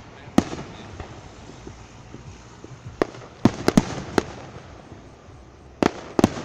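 Aerial fireworks shells bursting with sharp bangs and a rumbling echo between them: one bang near the start, a quick run of four or five about three to four seconds in, and two more near the end.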